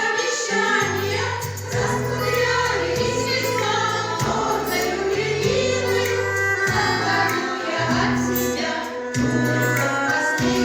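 Music of a folk-pop song performance: a bass line stepping between held notes under a melody, with a group sound that may include choral voices.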